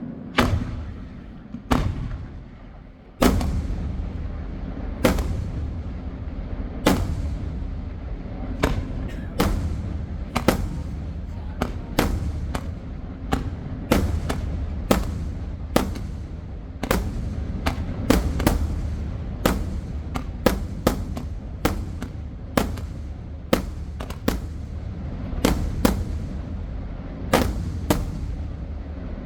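Fireworks display: a rapid, irregular series of sharp bangs, about one to two a second, over a continuous low rumble.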